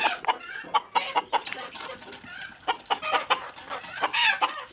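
Village chickens clucking: many short calls in quick, irregular succession, with one louder, higher call about four seconds in.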